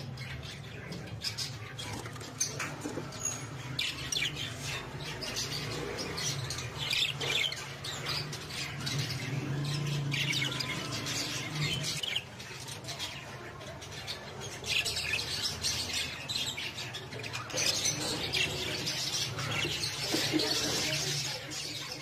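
Budgerigars chattering: a continuous stream of rapid high chirps and squawks from several birds, with louder spells around the middle and near the end, over a steady low hum.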